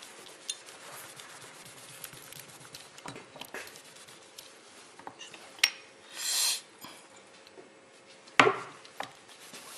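A tissue wiping a small metal disc on a workbench, with scattered light clicks and knocks as the disc and small metal parts are handled on the bench top. A short hiss comes about six seconds in, and the loudest sound is a sharp knock about eight and a half seconds in.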